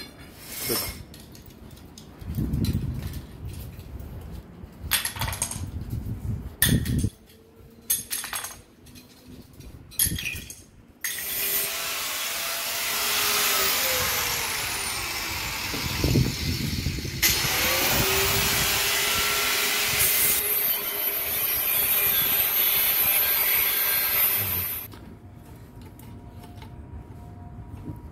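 A power tool cutting, running in two long stretches with a short break between, its motor pitch sagging and recovering under load, after a stretch of scattered knocks and handling sounds.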